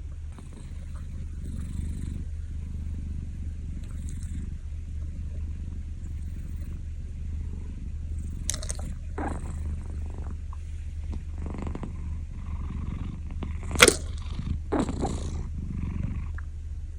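Calico cat snoring, low breathing sounds that swell and fade. A few sharp clicks or knocks come in the second half, the loudest about 14 seconds in.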